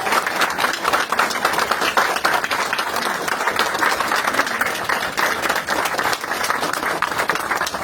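A group of people applauding, a dense steady patter of clapping.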